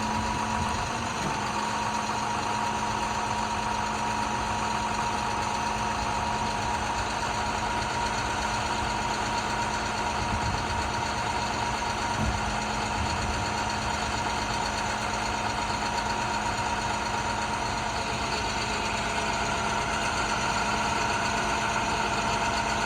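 International 4300's MaxxForce DT diesel engine idling steadily, with a constant hum and a higher steady whine over it.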